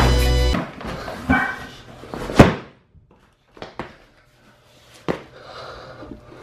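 Background music cuts off within the first second. A snowboard in a padded bag comes down an aluminium attic ladder and lands with a loud thud on the concrete floor about two seconds in. A few sharp knocks follow as shoes step down the ladder's metal rungs.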